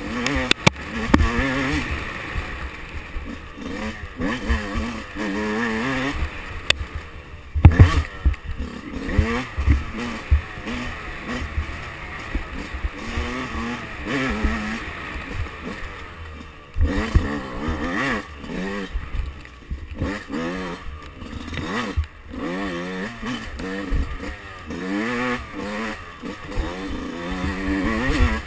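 2005 Yamaha YZ125's 125cc two-stroke single-cylinder engine being ridden hard, its pitch rising and falling over and over with the throttle. Sharp knocks and clatter come through the whole time, the loudest about eight seconds in.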